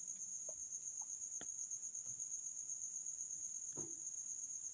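Crickets trilling steadily in the background, a high continuous pulsing chirr. A faint short low sound comes about four seconds in.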